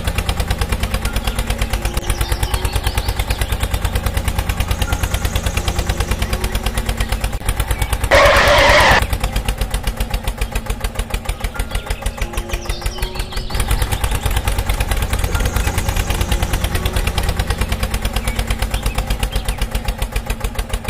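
Tractor engine sound idling with a fast, even put-put. About eight seconds in, a short loud rush of noise covers it for under a second.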